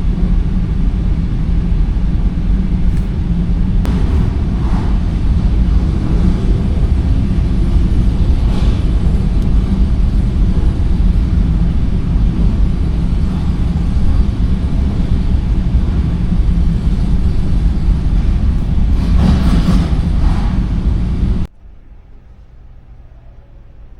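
Loud, steady, low engine rumble with a few faint knocks. It cuts off abruptly about 21 seconds in, leaving a much quieter low hum.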